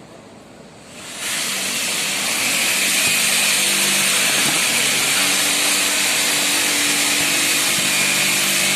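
An electric power tool starts up about a second in and runs at a steady speed, loud and whining.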